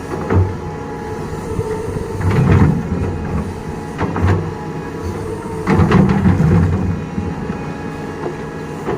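Doosan DX225LCA crawler excavator's diesel engine running steadily, swelling louder twice as it takes load, with scattered heavy metal clanks and knocks from the machine at work.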